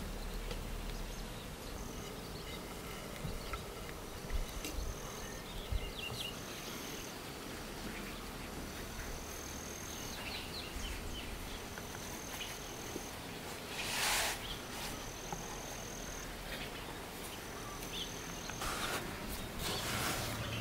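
Quiet rural outdoor ambience: a thin, high call about a second long repeats every two seconds or so over a steady low background. A short burst of noise comes about two-thirds of the way through, with more light handling noise near the end.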